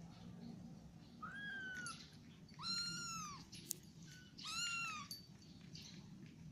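Domestic cat meowing three times, each meow a pitch that rises and then falls, the second and third louder than the first. A single short click comes between the second and third meows.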